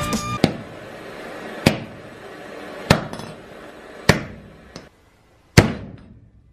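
A series of sharp, hard knocks with ringing tails: five loud strikes roughly a second and a half apart and one smaller one, over a faint crackling hiss that dies out near the end.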